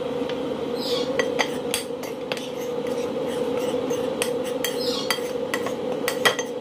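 Metal spoon stirring and scraping a dry flour-and-cornstarch mix on a ceramic plate, with many light clicks and scrapes of metal on the plate. A steady hum runs underneath.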